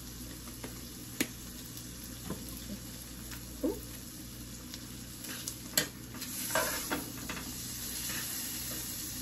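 Shrimp sizzling in a thin film of butter and grapeseed oil in a nonstick skillet, with a few sharp clicks of a fork against the pan as they are turned, the loudest about a second in and near six seconds.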